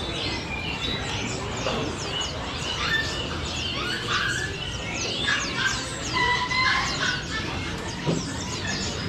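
Many caged songbirds chirping and whistling at once, a dense chorus of short overlapping high calls.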